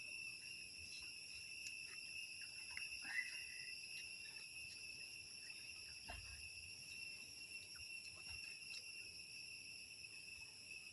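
Faint, steady insect chorus, like crickets, making a continuous high-pitched buzz at several pitches at once. A few faint clicks and a soft low thump about six seconds in.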